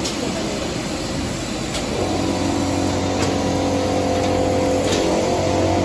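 Automatic jumbo-roll shrink-wrapping and sealing machine running: a steady mechanical whir with light clicks every second or so. About two seconds in, a steady humming tone starts and carries on.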